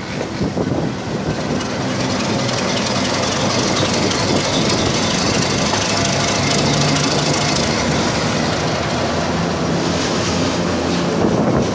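Train hauled by an Alco RSD-39 diesel locomotive, heard on board as it rolls over the rails: a steady rumble with clickety-clack, and a high wheel squeal through the middle.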